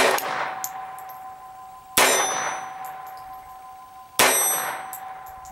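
Astra Cub .22 Short semi-automatic pocket pistol firing three single shots about two seconds apart, each a sharp crack followed by a ringing tail that dies away.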